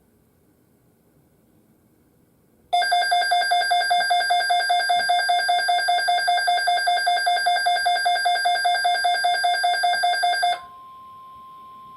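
Weather alert radio's alarm: a loud, rapidly pulsing electronic beep starts about three seconds in and lasts about eight seconds. It then gives way to a quieter steady tone near 1 kHz, the NOAA Weather Radio 1050 Hz warning alarm tone that comes before an alert message.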